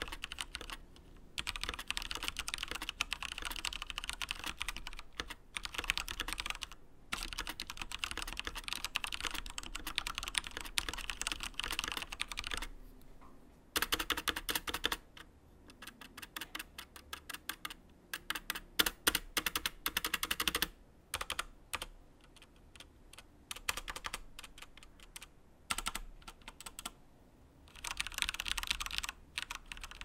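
Typing on a Cooler Master Masterkeys Pro M mechanical keyboard with Cherry MX Brown switches, which are light and tactile: fast, continuous typing for the first dozen seconds or so, then slower, separate keystrokes with short pauses, and one more fast run near the end.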